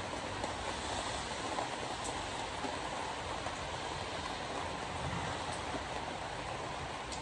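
Soy chunks and vegetable cubes frying in a pot: a steady sizzle with faint scattered crackles.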